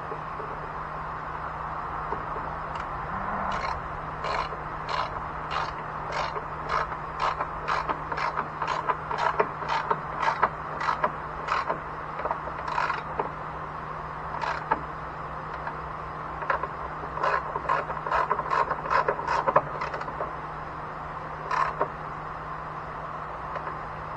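Hand ratchet wrench clicking in quick strokes, about two to three clicks a second, in two runs with a short pause between, as bolts are run in by hand. A steady low hum sits underneath.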